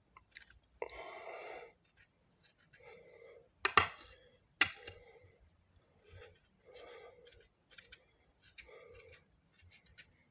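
Faint short scraping and rubbing strokes on the charred skin of a fire-roasted guava as the burnt layer is cleaned off, with two sharp clicks about four and five seconds in.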